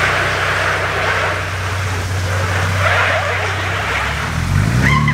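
2022 Ford Bronco Raptor's twin-turbo V6 running steadily on the move, with road and tyre noise. Its pitch rises near the end as the truck speeds up.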